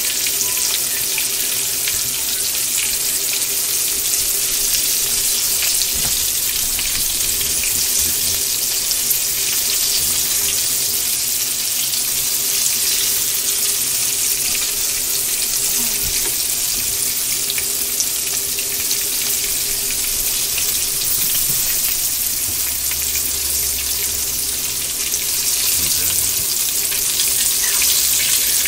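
Breaded squirrel pieces frying in a pan: a steady sizzle with fine crackling.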